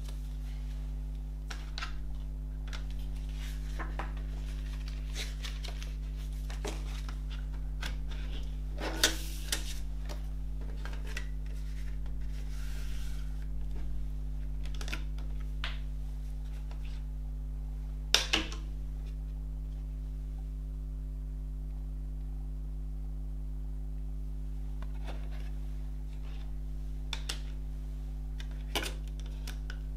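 Plastic CD jewel case and disc being handled: soft rustles and scattered sharp plastic clicks as the disc is pressed on and worked off the tray's centre hub. The loudest clicks come about nine seconds in, about eighteen seconds in, and near the end. A steady low hum runs underneath.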